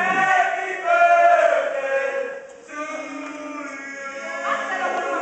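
Several male voices singing together in long held notes, in three phrases one after another.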